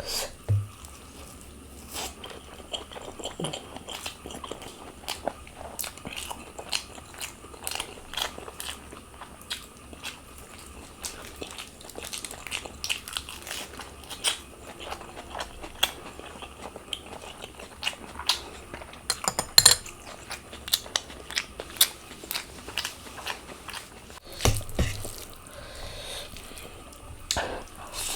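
Close-miked eating: steady chewing with many sharp, crisp crunches and bites, thickest about twenty seconds in, and a few dull thumps.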